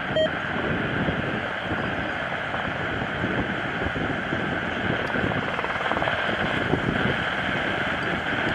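UH-60 Black Hawk helicopter in flight, its main rotor and turbine engines making a steady, even noise.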